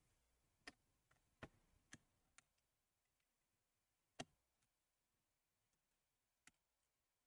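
Near silence broken by a handful of faint, irregular clicks and taps, the loudest about four seconds in: metal tweezers and gloved fingers working at the adhesive tape under the corner of a laptop LCD panel.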